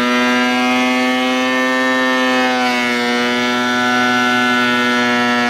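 Benchtop thickness planer running with a steady, loud motor whine while planing a white oak board; the pitch sags slightly about halfway through.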